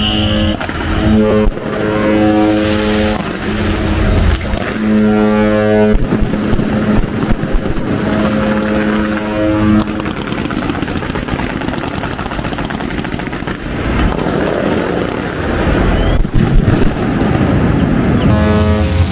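A ship's horn sounding several long blasts of a couple of seconds each. About ten seconds in, these give way to a dense crackling hiss of fireworks and smoke flares going off.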